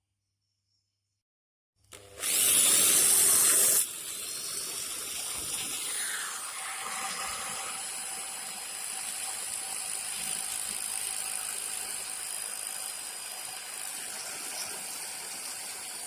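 Small homemade mini engine running with a steady mechanical whirr. About two seconds in there is a loud, harsh burst lasting under two seconds, which then settles into the steadier running sound.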